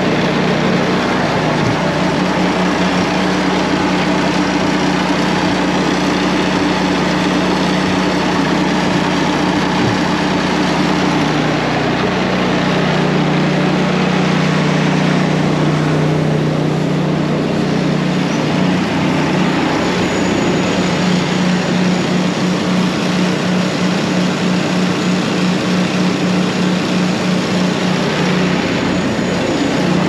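Engine-driven belt auger running steadily at a constant pitch, with grain rushing through it into a grain truck.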